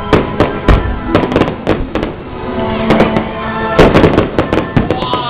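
Fireworks going off in many sharp, irregular bangs and cracks, several a second, over loud music with sustained notes.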